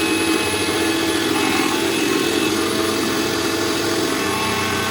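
Bajaj juicer mixer grinder's motor running steadily at full speed, loud, grinding a dry mix of oats, chocolate, jaggery and almonds into powder.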